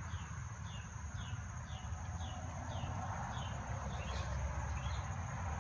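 Outdoor insects making a steady high-pitched drone, with a short falling chirp repeated about twice a second that stops near the end, over a low rumble.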